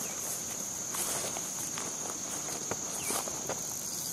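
Steady high-pitched insect drone, with a few scattered footsteps and rustles in the bank grass.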